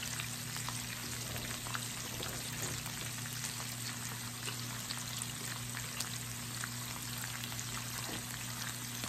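Pork belly and other meat sizzling steadily on a hot electric raclette grill plate, with fine spitting crackles of fat.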